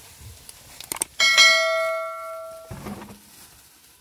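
A couple of mouse-click ticks, then a bright bell chime that rings out and fades over about a second and a half: the sound effect of a subscribe-button animation.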